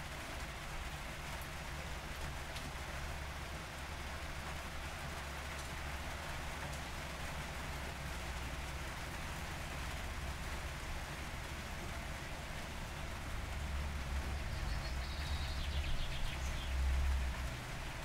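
Steady rain falling, with a low rumble underneath that grows louder in the last few seconds.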